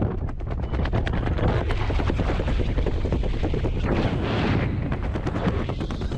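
Wind buffeting a helmet-camera microphone under an open parachute: a steady low rumble with fast, crackling flutter, and a stronger gust of hiss about four seconds in.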